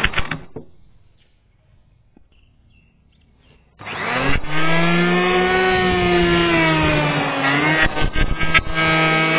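Electric hand planer winding down and stopping at the start, then, after about three seconds of quiet, switched on again and running loudly as it planes a wooden beam, its motor pitch wandering up and down, with a few clicks just before the end.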